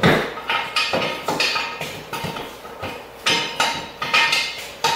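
Metal parts at the rear wheel hub of a Honda three-wheeler being knocked: about nine irregular sharp metal-on-metal knocks, each with a brief ring.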